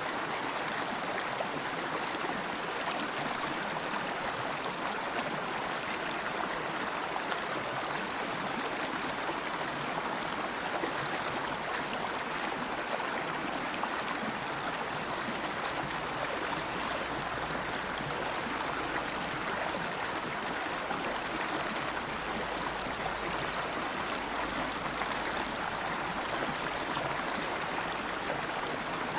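River water flowing steadily over rocks, an even rushing and gurgling with no breaks.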